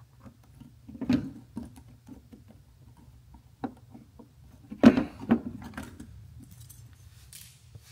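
Handling noise from a retaining ring and gasket being pressed and worked into place around an LED landing light in an airplane's nose cowling: scattered light clicks and taps, the loudest about a second in and around five seconds in.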